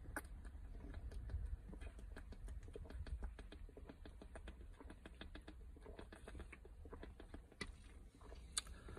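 A man gulping lemon-lime soda from a plastic bottle: a long run of soft swallowing clicks, several a second, with a sharper click near the end.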